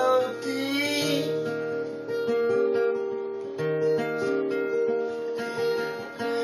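Plugged-in acoustic guitar strummed in a steady rhythm, its chords ringing and changing every few seconds, with a man singing into the microphone.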